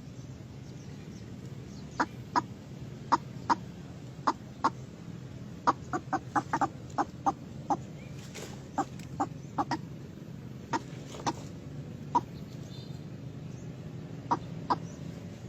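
White-breasted waterhen calling: short, sharp clucking notes at irregular intervals, with a quick run of them about six seconds in.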